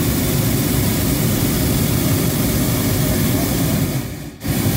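Hot air balloon's propane burner firing with a loud, steady rushing noise, cutting out for a moment near the end and firing again.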